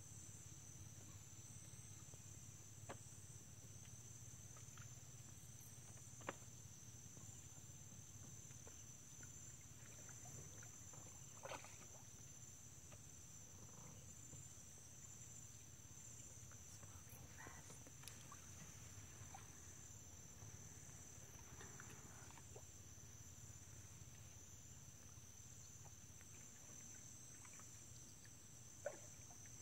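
Faint, steady high-pitched chorus of crickets or similar insects from the riverbank vegetation over a low steady hum, broken by a few sharp knocks, the loudest about six seconds in and near the end.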